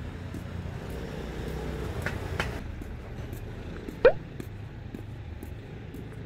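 Steady low outdoor rumble, with three brief squeaks that rise sharply in pitch: two close together about two seconds in and a louder one about four seconds in.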